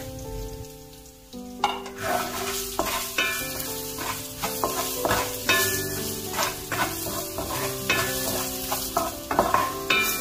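Sliced shiitake mushrooms and pounded garlic sizzling in hot oil in a wok, stirred and scraped with a wooden spatula in repeated strokes. The sizzle picks up about a second and a half in.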